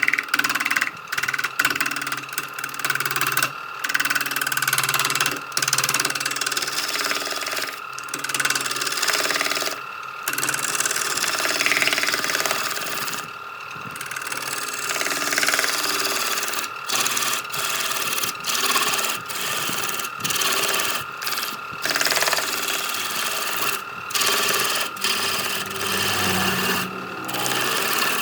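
Electric power tool running as it works wood, a steady whine over grinding and rubbing noise. It breaks off abruptly and starts again many times.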